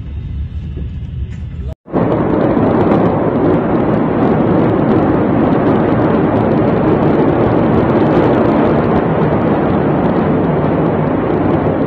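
Loud, steady roaring rumble with a fine crackle from the port fire and smoke plume, picked up by a phone's microphone. It starts abruptly after a short gap about two seconds in; before that there is a quieter low rumble.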